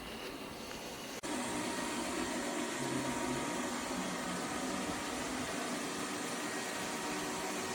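Lefant M210 Pro robot vacuum running, a steady whir with a faint whine. The sound cuts out for an instant about a second in and comes back louder.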